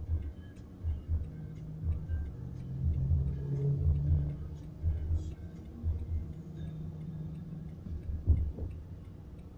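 Steady ticking in a car's cabin, with low pulsing bass music and a low hum from the idling car.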